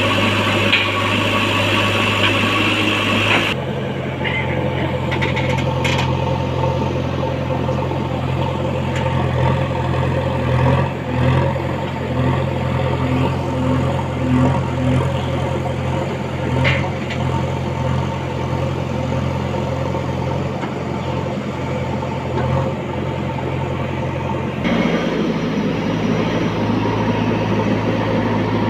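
JCB 3DX backhoe loader's diesel engine running steadily while the machine works, with an abrupt change in its tone a few seconds in and again near the end.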